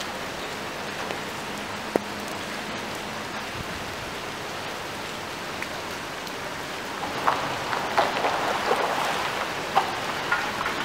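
Rain falling steadily onto standing floodwater and pavement, an even hiss with scattered sharp drips and splashes that grow louder and more frequent from about seven seconds in.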